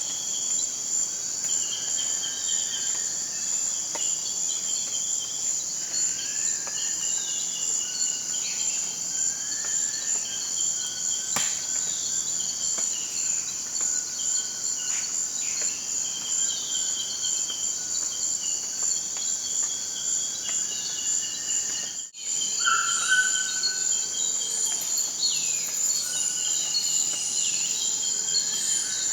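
Rainforest ambience: a steady high-pitched drone of insects, with birds calling over it in short repeated whistles, chirps and sliding notes. About three-quarters of the way through the sound drops out for an instant at a cut, and a louder bird whistle follows straight after.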